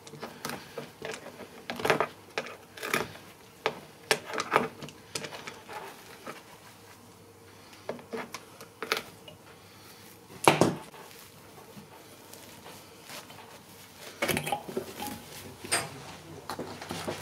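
Scattered metallic clicks and knocks of upholstery pliers working at the tacks along an old wooden chair frame as the seat is stripped. The loudest knock comes about ten and a half seconds in, with a quicker run of clicks near the end.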